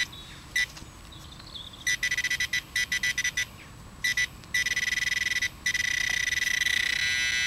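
Handheld metal-detecting pinpointer probe buzzing as it is swept through loose soil: bursts of rapid high beeps that run together into a steady tone from about halfway through, the sign that the probe is right over the buried metal target.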